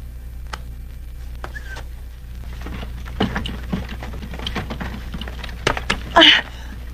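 Old film soundtrack with a steady low hum under it, scattered clicks and knocks that grow busier after about three seconds, and one short loud burst of noise near the end.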